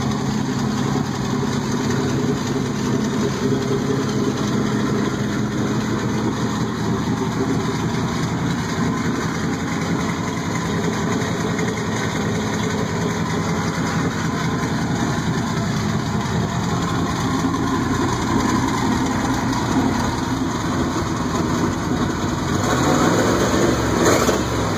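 Twin-turbocharged hot rod engine idling steadily, then revved up and back down near the end.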